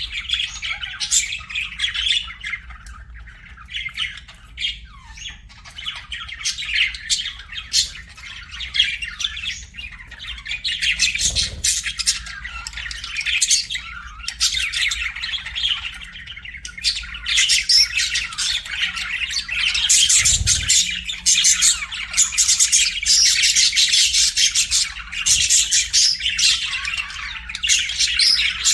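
Budgerigars chirping and chattering in a rapid, continuous warble, busier and louder in the second half.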